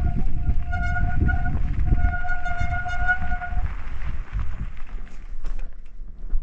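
Bicycle brake squealing in a steady high tone for about three and a half seconds, broken by short gaps, over low wind rumble on the microphone while riding downhill; after the squeal stops, a few light rattles.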